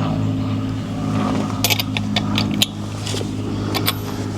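A vehicle engine idling with a steady low hum, with a few light metallic clicks from a socket and lug-nut tools being handled at the wheel, a cluster about halfway through and one more near the end.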